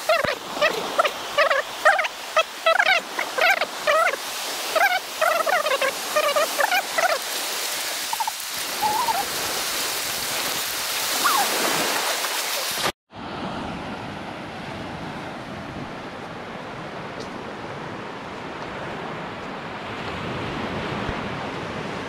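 Surf washing onto a sandy beach, with birds calling in quick, repeated notes over it for the first several seconds. About 13 seconds in the sound cuts off abruptly and returns as a steady wash of surf alone.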